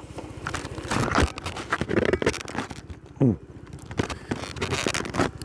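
Cloth rustling and scraping against a helmet-mounted microphone as a neck scarf is adjusted, over a motorcycle engine idling with an even low pulse. A short falling vocal grunt comes a little after three seconds in.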